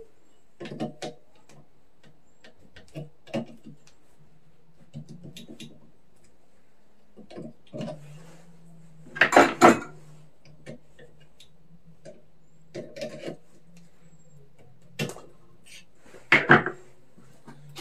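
Intermittent metallic clinks and clatters of hand tools and loose parts being handled while taking a lawn mower apart, the loudest just past halfway and again near the end.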